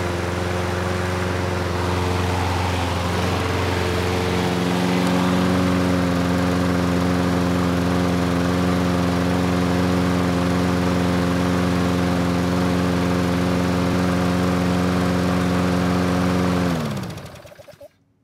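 Briggs & Stratton Quantum single-cylinder engine on a Toro Recycler walk-behind mower running at a steady speed, its pitch rising slightly a few seconds in. Near the end it is shut off and winds down to a stop in about a second.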